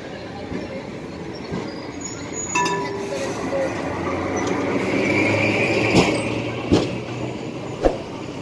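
Heritage street tram passing close by on its rails. The rumble of its wheels builds to a peak about five to six seconds in, with a faint squeal, and a few sharp knocks follow as it goes by.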